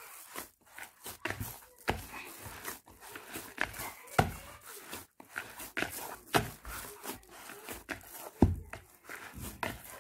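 Ensaymada dough being kneaded by hand in a plastic bowl: irregular thumps and slaps as the dough is pressed and folded against the bowl, about one or two a second, with a few louder thuds.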